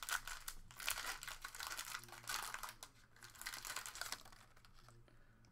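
A foil trading-card pack wrapper crinkling and tearing as it is ripped open and handled. The dense crackling dies away about four seconds in.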